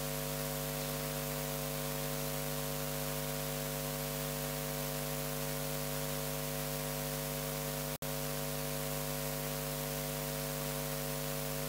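Steady electrical mains hum of several buzzing tones over a hiss from an open microphone and sound-system line, with no voice on it. The sound cuts out for a split second about eight seconds in.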